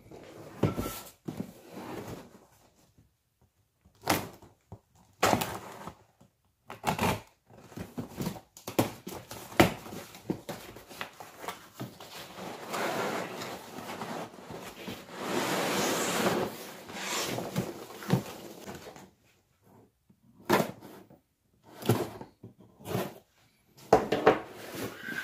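Cardboard shipping box being opened and unpacked by hand: scattered knocks and scrapes of cardboard flaps, then a few seconds of rustling as packing peanuts are dug through, and more thunks as an inner box is lifted out near the end.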